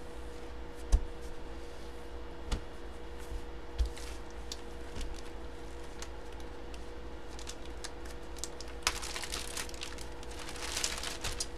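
Three soft thumps of things set down on a table, then clear plastic packaging crinkling and rustling in the hands from about nine seconds in.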